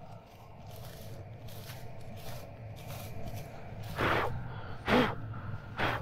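Dry wheat straw rustling in short strokes as a hand parts the stubble to search for grain lost behind the combine. The strokes grow louder about two-thirds of the way in, three times about a second apart, over the steady low hum of an engine.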